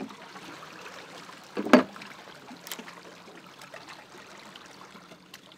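Water rushing and lapping against the hull of a boat anchored in a strong tidal current, with a single loud knock or splash about two seconds in.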